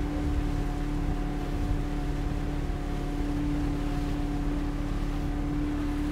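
19-foot motorboat's engine running at a steady cruising speed with a constant drone, mixed with wind on the microphone and water rushing past the hull.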